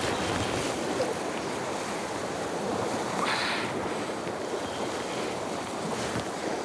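Sea surf washing against a rocky shore in a steady rush, with wind on the microphone. A short sharper hiss comes a little past halfway.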